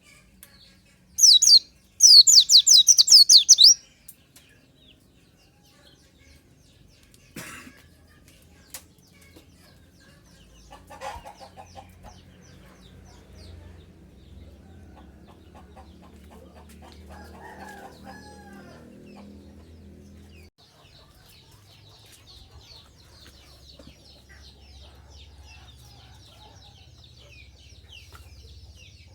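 White-eye (pleci) song: two loud bursts of rapid, high-pitched chirping in the first few seconds, the second one longer. After that a chicken clucks faintly in the background, and soft high twittering comes back near the end.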